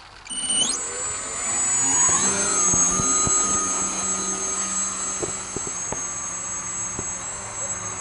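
Electric motor and propeller of a small foam delta-wing RC plane spinning up with a quickly rising whine, then held at a steady high whine at full throttle. It is loudest about two to three seconds in and eases a little as the plane flies away. A few short knocks come in the middle.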